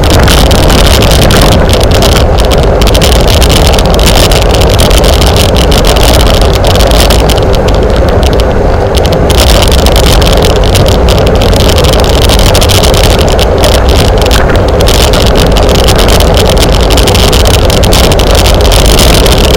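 Steady, very loud wind rush buffeting the microphone of a camera on a bicycle moving at race speed.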